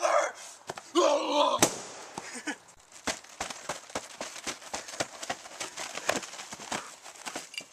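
A brief shout and a single sharp crack, then several seconds of rapid, irregular crackling clicks, several a second, quieter than the voice.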